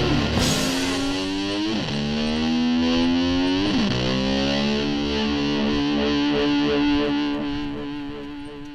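Distorted electric guitar, played with a slide in imitation of a motor scooter revving: the pitch climbs and then drops sharply twice, as if shifting gear, then holds one steady note that fades away near the end.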